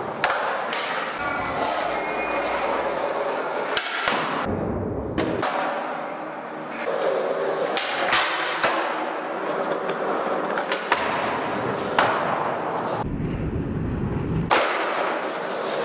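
Skateboard wheels rolling on a concrete floor and over a wooden pallet ledge, with several sharp cracks of the tail popping and the board landing. The rolling sound cuts off abruptly twice, between clips.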